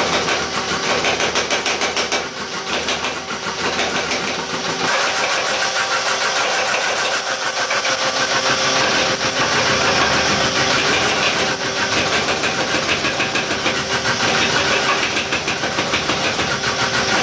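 A machine running steadily with a rapid pulsing rattle and a steady hum.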